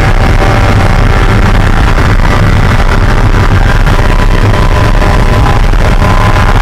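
Spec Miata's four-cylinder engine running loud at a steady pitch, heard from inside the race car's cockpit, with engine rumble and road noise.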